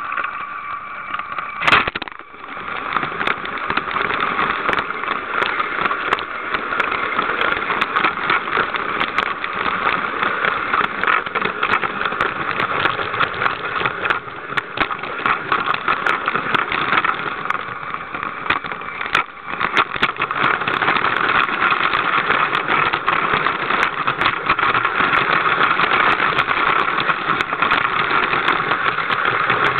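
Lego train's electric motor running steadily, with a rapid clatter of small clicks from the wheels and gears on plastic track. A sharp click comes about two seconds in, and the sound dips briefly about 19 seconds in.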